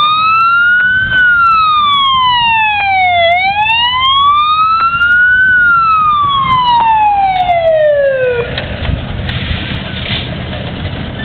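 Fire engine siren wailing, slowly rising and falling in pitch, each sweep about two seconds long. It cuts off suddenly about eight and a half seconds in.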